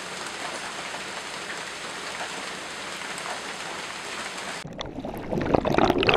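Steady rain falling, an even hiss that cuts off sharply about four and a half seconds in. A louder rushing noise follows and grows near the end.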